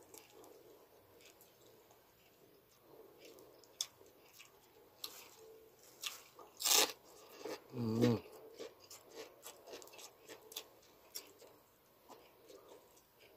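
Crunching and chewing of crispy chicharon (deep-fried pork rind), a run of crisp crackles with one loud crunch about seven seconds in. A short vocal sound from the eater follows the loud crunch.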